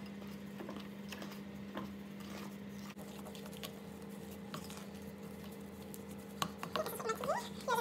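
Wooden spoon stirring and folding thick cookie dough in a glass mixing bowl: soft scraping with scattered light taps against the glass, over a steady low hum.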